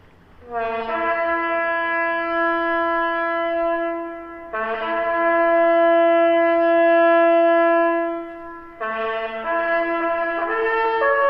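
A solo wind instrument plays a slow tune in three long phrases. Each phrase opens with a short lower note and then holds a long note. The last phrase moves through several notes near the end.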